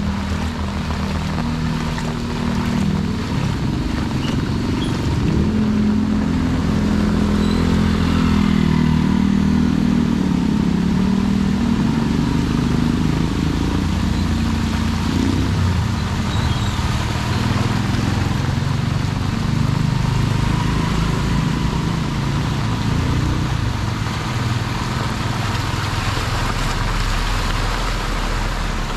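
Motor vehicle engine running steadily, its pitch drifting up and down as it speeds up and slows, with road noise.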